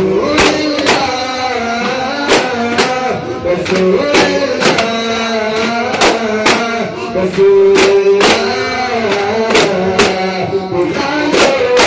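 Duffs (hand-held frame drums) struck together in a rhythm of sharp strokes, about two a second, under male voices singing an Islamic devotional nath.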